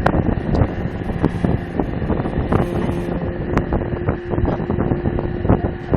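Ship's anchor gear running during an anchor test: a loud, dense clanking and rattling over a steady mechanical hum.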